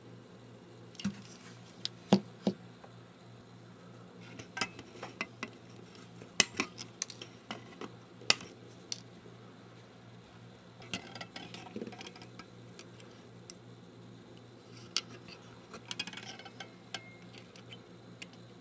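Scattered sharp clicks and light clatter of small hand tools handled at a circuit board while new capacitors are soldered in, over a faint steady hum.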